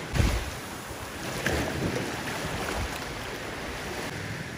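Gentle sea waves washing on a shallow beach at low tide, a steady rushing of surf. Wind hits the microphone in a loud low gust just after the start and again around a second and a half in.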